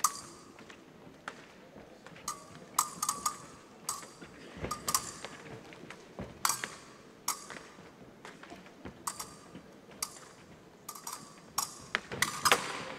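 Épée blades clicking and clashing in irregular flurries of sharp metallic ticks, several with a short ring, mixed with fencers' footwork on the piste; the busiest, loudest flurry comes near the end during a lunge.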